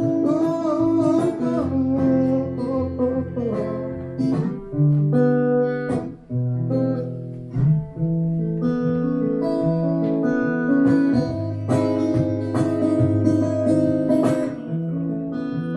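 Acoustic guitar played solo, strummed chords in an instrumental break of a song, the chord changing every second or two.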